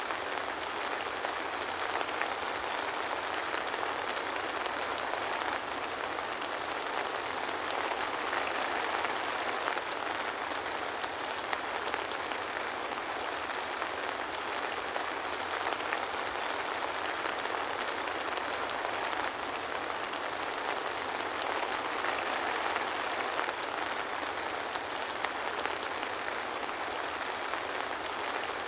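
Steady soft rain falling, an even patter of many small drops on a surface, with no thunder.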